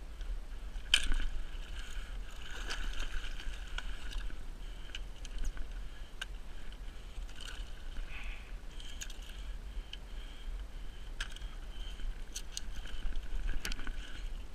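Water splashing and sloshing around a kayak during a fight with a big king salmon at the boat, with scattered knocks and clicks from the rod and gear against the hull, the loudest about a second in, over a steady low rumble.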